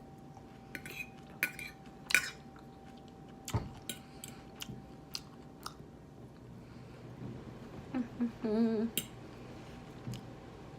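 Cutlery clinking against a plate and bowl while eating, in scattered single clicks with chewing between. About eight and a half seconds in comes a short wavering hum.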